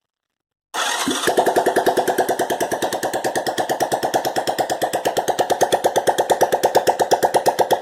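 1986 Honda Fourtrax 125's single-cylinder four-stroke engine catching a moment after the start and running on its first start after a top-end rebuild, with no exhaust pipe fitted: a rapid, even train of sharp pops straight from the open exhaust port.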